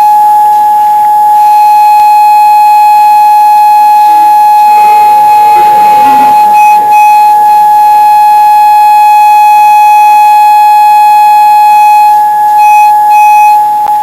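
Loud, steady pure tone at about 840 Hz, with faint overtones, from a high-power speaker driven by a signal generator and amplifier. It is tuned to the champagne glass's resonant frequency of 841.5 Hz to set the glass vibrating.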